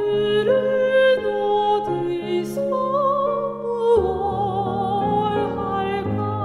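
Background music: a slow, gentle song with a melody in long held notes over a steady bass line that shifts about four seconds in.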